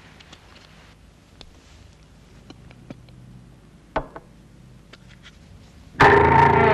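A quiet room with faint small clicks and taps of hands handling things at a desk, and a single sharp knock about four seconds in. Near the end, soundtrack music with plucked guitar starts abruptly and loudly.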